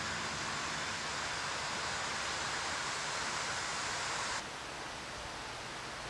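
Steady rushing and splashing of creek water running over a shallow rocky bed. It drops suddenly to a quieter, duller outdoor background about four and a half seconds in.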